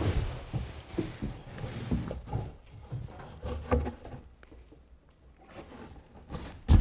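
Cardboard packaging being handled and lifted: scattered rubs, scrapes and small knocks of cardboard, dying down for a second or so about two-thirds through, then a louder knock near the end.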